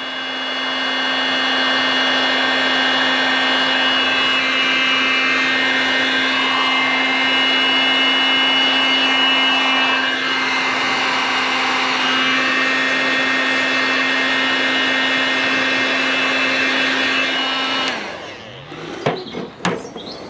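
Electric heat gun running steadily, its fan blowing with a constant hum, as it shrinks a solder-seal butt connector and melts the solder inside. It switches off near the end, followed by a few light handling knocks.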